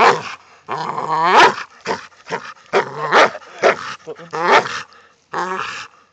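Blue-nose pit bull growling and whining in a string of short bouts as it pulls and shakes a hanging rope in its jaws, several of the bouts rising in pitch.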